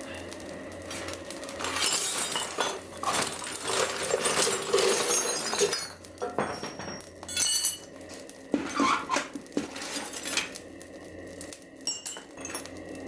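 Pieces of scrap metal clinking and clattering against each other as they are handled in a bucket. There is a dense jangle for a few seconds, then separate clinks that grow quieter near the end.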